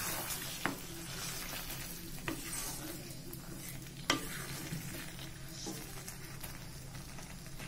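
A spatula stirring and mixing a raw banana curry in a kadai over a steady low sizzle, with about four sharp knocks of the spatula against the pan.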